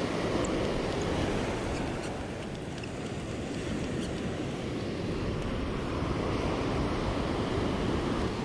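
Ocean surf breaking and washing up a sandy beach, a steady rushing wash, with wind on the microphone.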